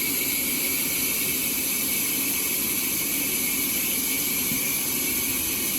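Sawmill saw running: a steady, unchanging hiss with a constant high whine, loudest in the upper range.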